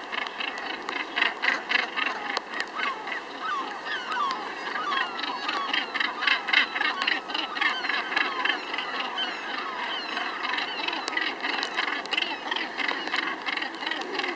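Northern gannet colony calling: many short, harsh calls overlapping in a continuous chorus.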